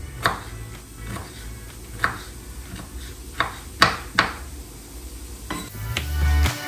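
Kitchen knife dicing a carrot on a wooden cutting board: a handful of sharp, irregularly spaced taps of the blade against the board. Music with a heavy beat comes in near the end.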